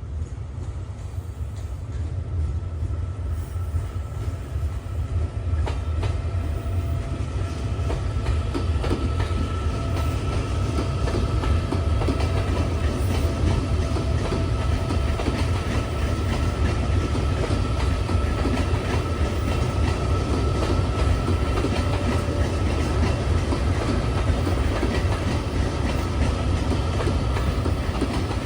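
EMU800 electric multiple unit pulling slowly out of the station, its wheels clacking over the fishplated rail joints, over a low rumble and a steady high tone. It grows louder over the first several seconds, then holds steady.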